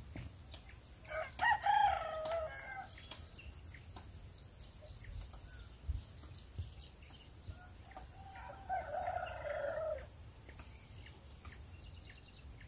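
Rooster crowing twice: a first crow about a second in and a second one near the middle of the stretch, each lasting one to two seconds.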